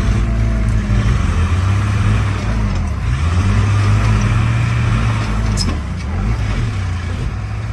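Heavy diesel engines labouring under load, their pitch rising and falling, as a bulldozer pushes a stuck dump truck. A single sharp click sounds a little past the middle.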